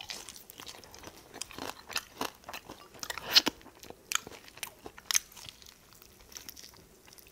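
A person biting and chewing Korean yangnyeom (sauced fried) chicken: irregular crunches of the fried coating mixed with chewing, loudest about three and a half seconds in and thinning to a few soft chews near the end.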